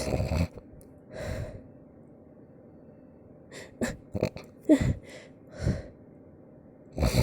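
Cartoon character's snoring: airy breaths come in separate bursts every second or two. Around the middle a quick run of short snorts includes a brief pitched glide.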